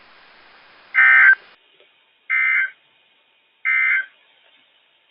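NOAA Weather Radio SAME end-of-message code: three short data bursts, each under half a second, about 1.3 s apart, signalling the end of the broadcast alert. Faint radio hiss before the first burst drops away after it.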